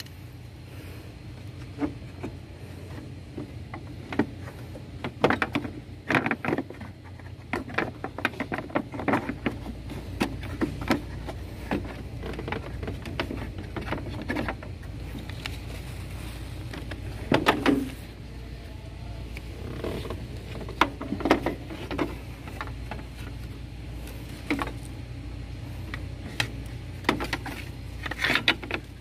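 Scattered clicks, knocks and light rattles of hand work on plastic clips and fasteners, as the radiator lower shroud cover is taken off in the engine bay. Under them runs a steady low hum that grows louder about nine seconds in.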